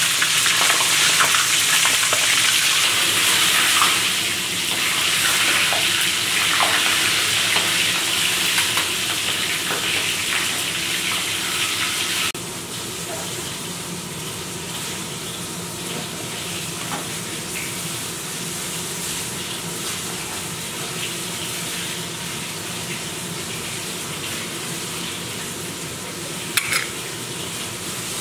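Chicken drumsticks deep-frying in hot oil: a loud, steady sizzle with scattered pops. About twelve seconds in it cuts off abruptly to a quieter steady hiss, with a single short clink near the end.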